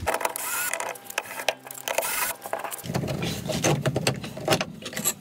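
Cordless drill-driver running for nearly three seconds, backing out a foot-plate screw on an electric unicycle. Then come clicks and scraping of a hand screwdriver and metal parts being handled.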